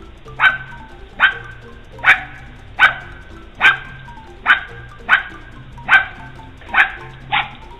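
A dog barking repeatedly, about ten sharp single barks at a steady pace of roughly one a second.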